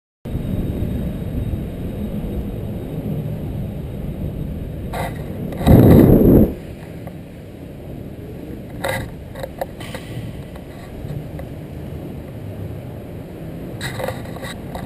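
Inline skate wheels rolling on a concrete parking-garage ramp: a steady low rumble that starts a moment in, with a few sharp clicks. About six seconds in, a loud low rush lasting under a second drowns everything.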